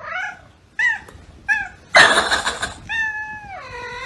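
A cat meowing: three short meows about two-thirds of a second apart, a loud harsh noisy burst about two seconds in, then one long meow whose pitch drops near the end.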